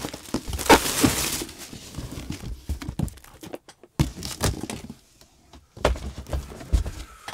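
A cardboard shipping box being opened and the boxed video switcher pulled out. It starts with a rough rush of cardboard about a second and a half long with two sharp cracks in it. Then come scattered knocks, scrapes and dull thuds of cardboard boxes being handled, with a sharp knock about four seconds in and low thumps near the end.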